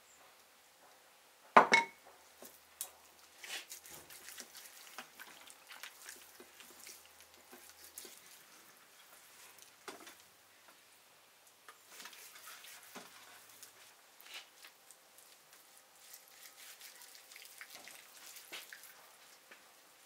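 Hands rubbing marinade into the skin of a raw goose, making soft, irregular wet squelches and small smacking clicks. About a second and a half in there is one much louder clink with a short ring.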